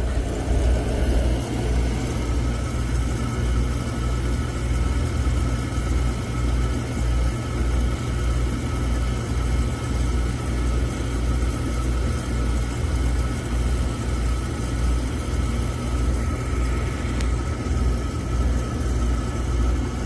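Beckett oil burner firing steadily: a low motor-and-flame drone that pulses slightly, with a faint steady whine above it. The flame is burning sooty, with some smoke.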